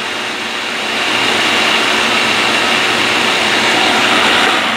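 Food processor motor running steadily at speed, mincing a carrot very fine; it is switched off and spins down near the end.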